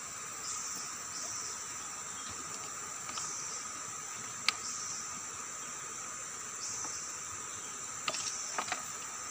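Forest insects (crickets or cicadas) keep up a steady shrill chorus. The high band swells for about half a second every few seconds over a steady lower whine. A sharp click comes about four and a half seconds in, and a few light knocks follow near the end.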